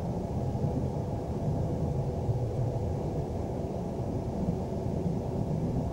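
Steady, muffled rumble of a train running, heard from inside the carriage.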